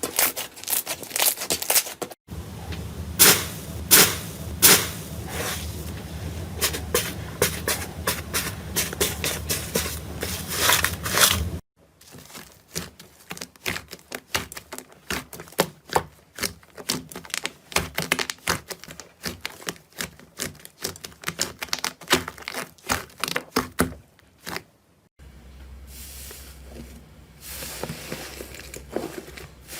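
Slime being squeezed and poked by hand: quick sticky pops, clicks and crackles, across several short clips that cut abruptly from one to the next.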